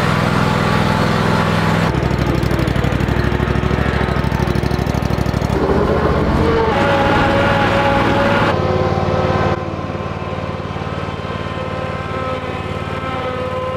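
Gravely zero-turn mower's engine running steadily as the mower is driven out and up a loading ramp onto a trailer. Its note shifts a few times and turns quieter about ten seconds in.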